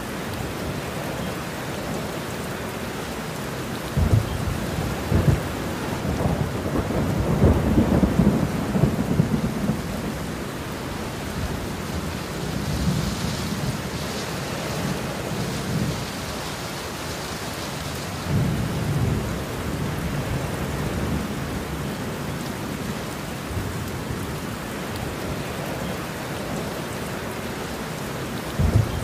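Heavy rain falling steadily, with thunder rumbling over it. The loudest thunder starts a few seconds in with sharp cracks and rolls on for several seconds; weaker rumbles come about two-thirds through and again just before the end.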